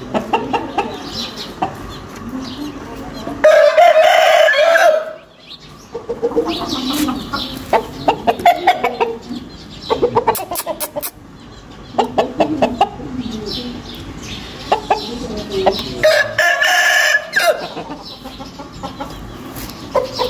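Roosters crowing: two loud crows of about a second and a half each, one about three and a half seconds in and another about sixteen seconds in, with shorter clucking calls between them.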